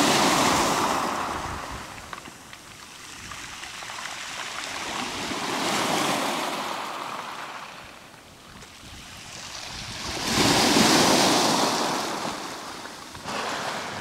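Small sea waves breaking on a pebble beach and washing back over the stones. The sound swells and fades three times: right at the start, about six seconds in, and loudest about eleven seconds in.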